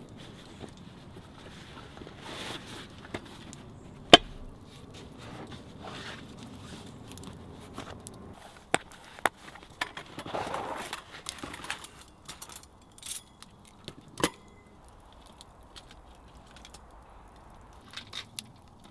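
Camp gear being handled: scattered clicks and knocks, with one loud sharp knock about four seconds in and a rustle of a canvas roll being opened about ten seconds in.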